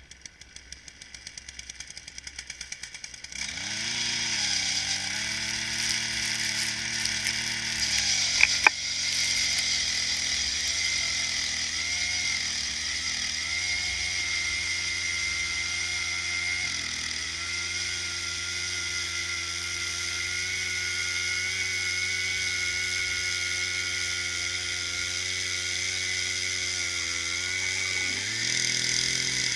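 Jiffy power ice auger's engine: a quiet rhythmic putter, then it revs up about three and a half seconds in and runs loud and steady while drilling through the ice, its pitch dipping and recovering as the auger takes load. A couple of sharp clicks near the start of the drilling.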